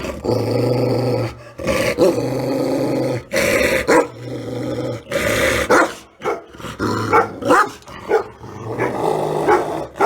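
An angry dog growling in long stretches of about a second each, broken by sharp barks; the barks come quicker and shorter in the second half.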